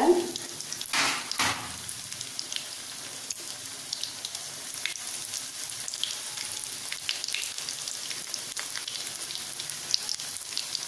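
Breadcrumb-coated beetroot cutlets shallow-frying in oil in a flat pan: a steady sizzle with scattered crackles and pops. There is a louder burst of sizzling about a second in as a fifth cutlet goes into the hot oil.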